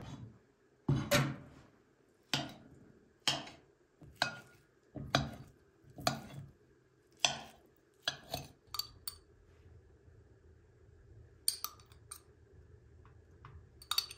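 Metal spoon and tongs clinking and scraping against a ceramic bowl and a stainless steel serving tray as cooked chicken pieces are moved. About a dozen sharp clinks come roughly one a second, then only a few fainter ones near the end.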